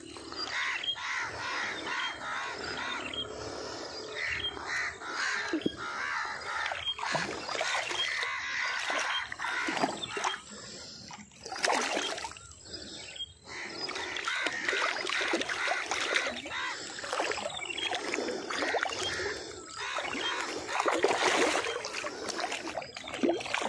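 Birds chirping and calling over a busy outdoor background, mixed with the splashing of a shot catfish thrashing at the water's surface on a slingshot line.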